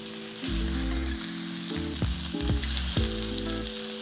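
Lamb chops sizzling and frying in hot olive oil in a stainless steel skillet, a steady hiss as more chops are laid into the pan. Background music with a bass line plays underneath.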